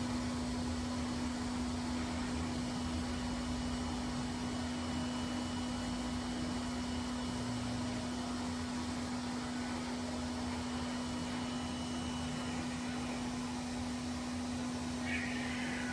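Hose-type pet blow dryer running steadily, a constant hum under rushing air, blowing on a cat's wet fur. Near the end the cat lets out a short cry.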